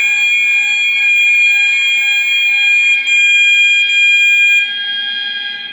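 Gent fire alarm system sounding in alarm with a loud, continuous steady tone, set off by a manual call point during a test. The level drops about four and a half seconds in, then fades away.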